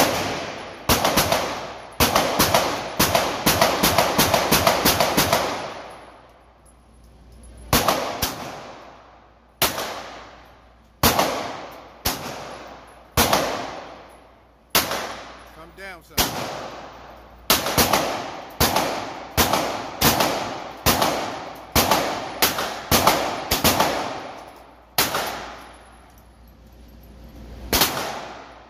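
Handgun shots echoing in an indoor range: a fast string of shots in the first few seconds, then slower single and paired shots roughly a second apart, each followed by a ringing echo off the walls.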